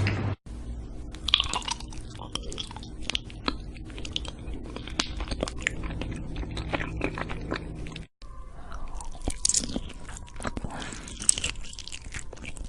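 Crunchy food being bitten and chewed close to the microphone: a dense, irregular run of sharp crunches, broken twice by a brief dropout, about half a second in and about eight seconds in.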